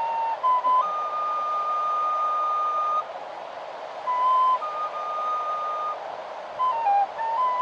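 A flute playing a slow melody of long held notes, rising a step about a second in and stepping down near the end, over a steady hiss.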